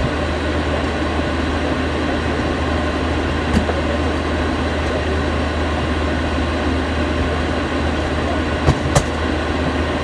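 Steady low rumble and hiss from inside a moving vehicle's cabin, with a faint click about a third of the way in and two sharp clicks close together near the end.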